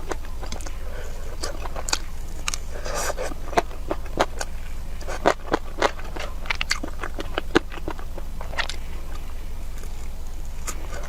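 Close-miked chewing and biting of food: irregular crisp clicks and crunches, busiest in the middle, over a steady low hum.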